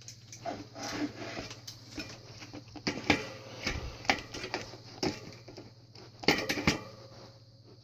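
Irregular metallic clicks, clinks and knocks as a mountain bike's front wheel is fitted back into the fork and its axle hardware is handled, with a few louder clatters about three seconds in and again near six and a half seconds.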